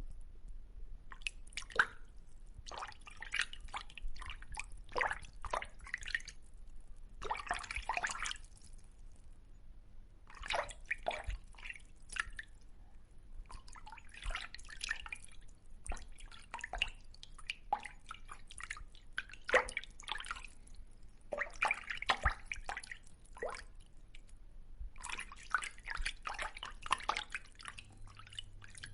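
Fish in water making small wet splashes and drips, in bursts of a few seconds separated by short pauses.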